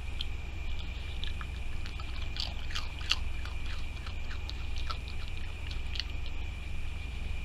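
Raccoon chewing and crunching food scraps: a run of quick, irregular clicks and crunches, thickest and loudest about two to three seconds in.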